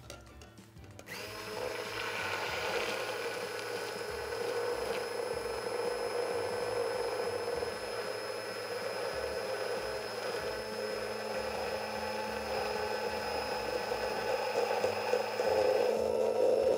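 Hand-held immersion blender switching on about a second in and then running steadily with a constant high whine in a tall beaker. It is whipping egg and mustard as oil is poured in slowly, emulsifying them into mayonnaise.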